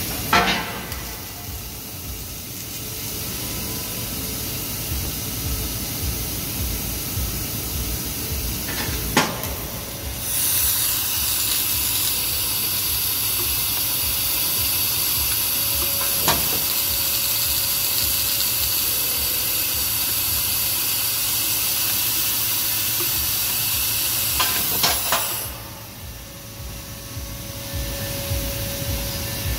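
Fiber laser cutting machine (Bystronic Bystar 3015 retrofitted with a 3 kW fiber source) cutting steel sheet: a steady hiss from the cutting head and cut. A much louder, higher hiss sets in about a third of the way through and drops back a few seconds before the end. A few sharp clicks are heard along the way.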